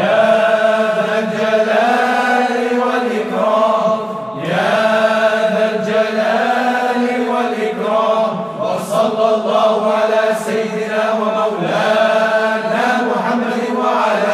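Melodic Arabic zikr chanting: drawn-out held notes sung in phrases of about four seconds, breaking briefly between them.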